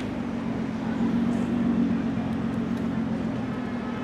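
Street traffic: a motor vehicle's engine running with a steady low hum over the general noise of the road, swelling slightly between one and two seconds in.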